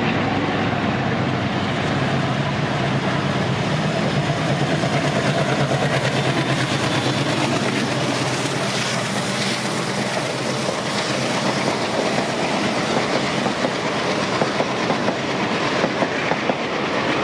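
Twin ALCo WDM-3A diesel locomotives, with 16-cylinder ALCo 251 engines, chugging under power as they pass. Their passenger coaches then roll by with a rhythmic clickety-clack of wheels over rail joints, sharper clacks coming more often near the end.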